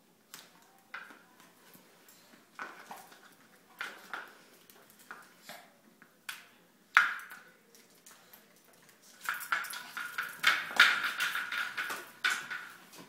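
A capped juice bottle knocking and clattering on a hard floor as dogs paw and push it: scattered sharp clacks, one loud knock about seven seconds in, then a denser rattling with a ringing tone for the last few seconds as it rolls on tile.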